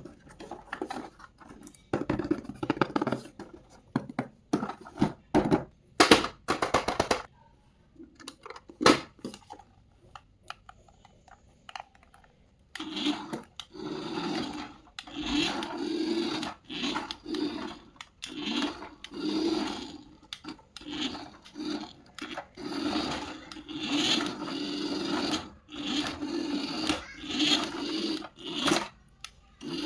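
A toy remote-control car handled with plastic clicks and knocks, then its small electric motor and wheels running in repeated short bursts of about a second each, starting a little before halfway through.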